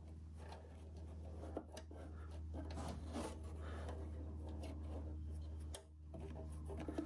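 Soft rubbing and rustling of a felt sheet coated with contact adhesive, slid and pressed by hand into a metal tool box drawer, with a few small clicks. A steady low hum runs underneath.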